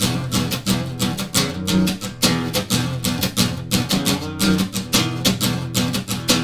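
Guitar strummed in a quick, steady rhythm, an instrumental break between the verses of a song.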